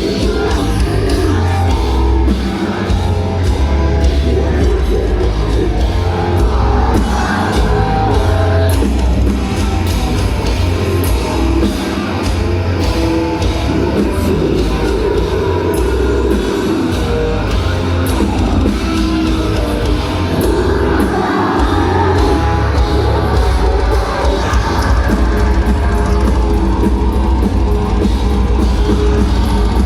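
Heavy metal band playing live at full volume: drum kit, distorted guitars and vocals.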